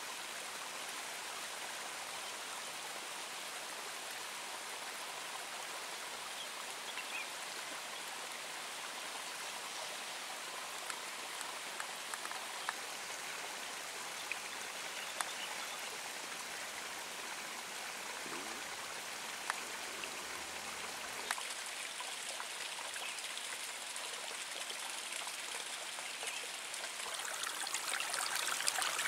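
Water running in a small irrigation ditch between rice paddies: a steady rushing with a few faint clicks, growing louder near the end.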